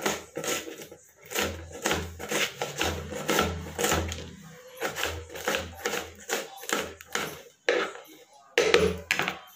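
Kitchen knife chopping on a round wooden chopping board, a steady run of quick taps about two to three a second, with a brief pause near the end.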